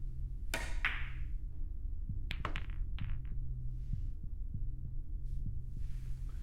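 A low steady throbbing drone. Over it, a short breathy rush about half a second in, then a quick run of four or five sharp clicks between about two and three and a half seconds in: a pool cue striking the cue ball and billiard balls knocking together.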